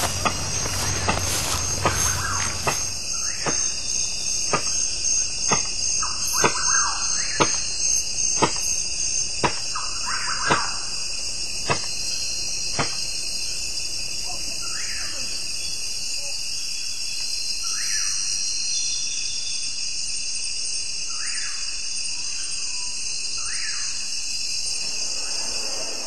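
Rainforest-style soundscape: a steady high-pitched insect drone, with a string of sharp knocks about once a second through the first half and a few short rising calls in the second half.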